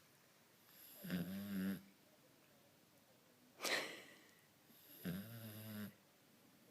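Snoring: two drawn-out, pitched snores about four seconds apart, with a short, sharp breath out between them.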